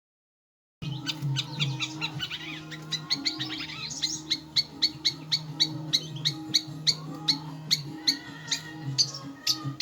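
Long-tailed shrike (cendet) calls played as a lure recording to set young shrikes calling: quick, sharp, high chirps repeating about two or three times a second over steady low background tones. The sound starts suddenly about a second in.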